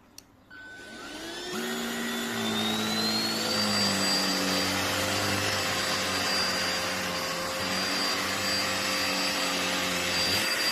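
Corded Cecotec Conga Rockstar 3000 handheld mattress vacuum switched on with a click, its motor spinning up with a rising whine over about three seconds, then running steadily with a strong rush of air.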